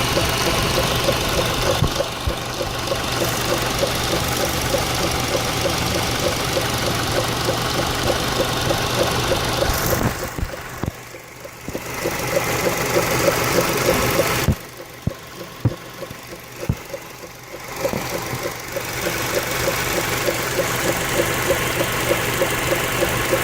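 Honda K20A1 inline-four engine running with a regular, rhythmic ticking: an extraneous noise from the engine. The sound drops away sharply twice in the middle, with a few clicks heard in the quieter stretches.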